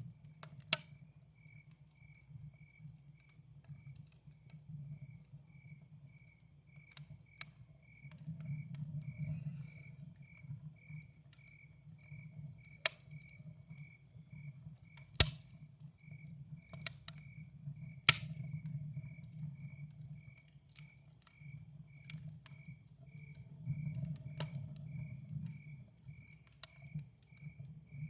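Campfire burning with a low steady rumble and scattered sharp crackles and pops, the loudest about 15 seconds in. A cricket chirps steadily, about one and a half chirps a second.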